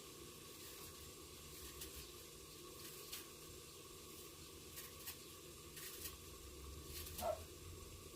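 Faint sizzling of a pork and squash stir-fry cooking in a pan, with a few light clicks and a short knock about seven seconds in.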